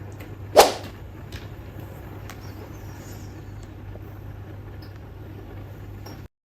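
Steady low background hum and noise with one sudden loud bump about half a second in. The sound cuts off abruptly near the end.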